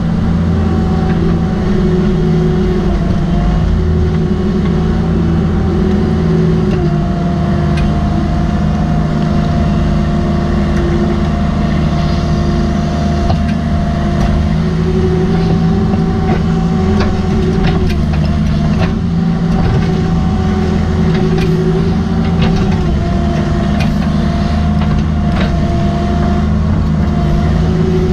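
Cat 305.5E mini excavator's diesel engine running steadily under digging load, heard from the operator's seat, with a whine that steps up and down in pitch as the boom, bucket and swing move. Occasional short knocks of rocky spoil against the steel bucket.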